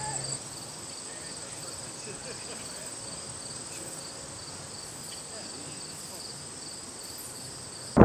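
Insects chirring steadily in a grassy summer field: one continuous high trill with a second, pulsing trill a little lower beneath it. Faint distant voices come through early on.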